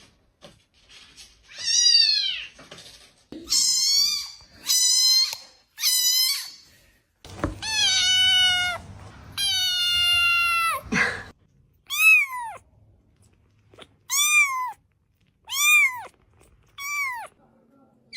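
Domestic cat meowing over and over, about ten meows: two long, drawn-out ones in the middle and shorter, rising-and-falling ones toward the end.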